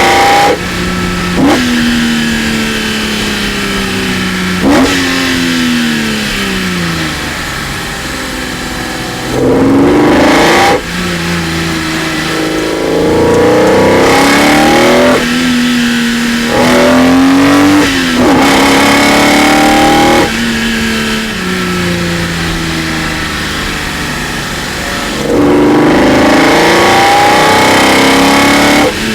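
BMW E46 M3's naturally aspirated S54 straight-six, breathing through individual throttle bodies and a carbon fibre intake, giving its induction noise under repeated hard acceleration. Each run climbs steadily in pitch. Between runs the pitch drops sharply at gear changes or falls away slowly as the throttle is lifted.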